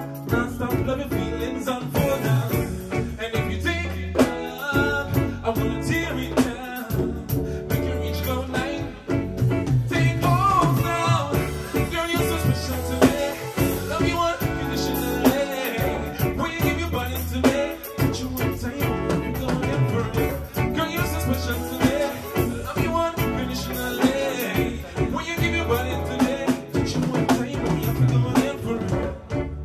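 A man singing live into a microphone, backed by electric bass guitar and drums with a steady beat.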